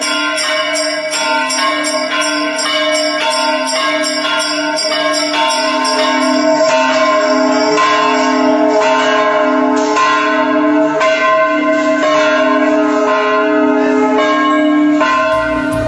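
Large temple bell ringing, struck repeatedly over a sustained hum of overlapping tones, about three strikes a second at first and slower later. It is offered as the sound of the Sigandi Pooranam bell of the Chidambaram Nataraja temple, said to draw listeners into deep meditation.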